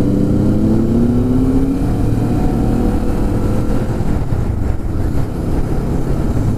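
Motorcycle engine pulling up through the revs for about the first two seconds, then holding steadier under a heavy low rumble of wind and road.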